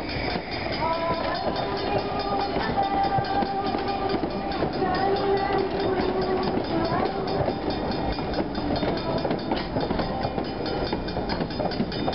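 A train running on the rails with a steady, dense wheel clatter. Several held tones sound over it for the first seven seconds or so, then fade, leaving only the clatter.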